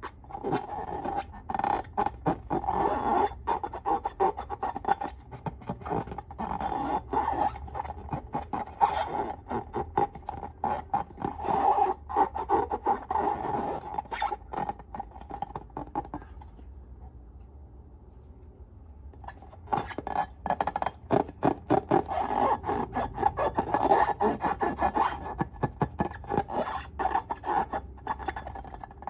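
Slime being worked by hand close to the microphone: dense, irregular crackling clicks and rubbing, pausing for a few seconds about two-thirds of the way through.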